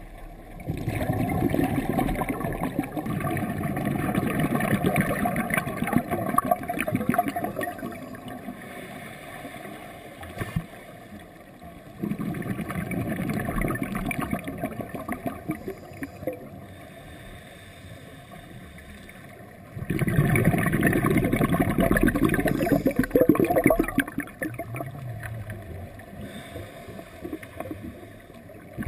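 Scuba diver's exhaled air bubbling out of the regulator, heard underwater: three long bursts of bubbling, each several seconds long, separated by quieter gaps as the diver breathes in.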